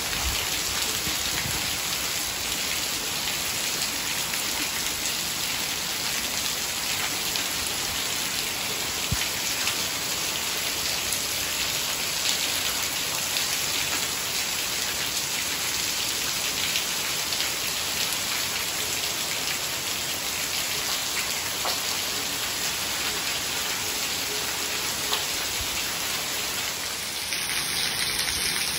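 Steady rain falling on wet ground.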